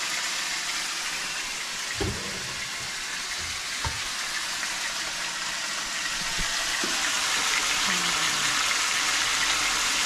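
Chicken pieces with garlic and onion frying in a pan, a steady sizzling hiss, with a few light knocks about two, four and six to seven seconds in.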